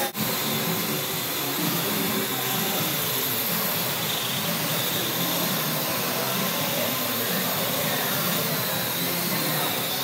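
Parrot AR.Drone quadcopter in flight, its four propellers and small electric motors giving a steady whirring hiss with a high whine. The sound drops out for an instant right at the start.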